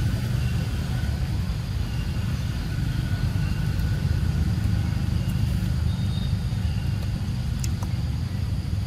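A steady low outdoor rumble, with a few faint short high chirps over it and a couple of light clicks near the end.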